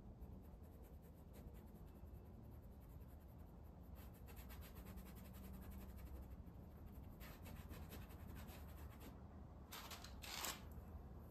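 Faint scratching of a paintbrush making quick short strokes of oil paint on gesso-primed canvas. Near the end come two louder, brief scrapes.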